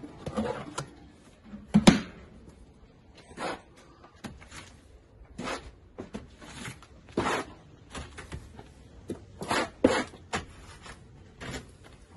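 Steel plastering trowel working wet mortar: irregular scrapes and knocks as mortar is scooped from a plastic bucket and spread onto a lath wall, the loudest about two seconds in.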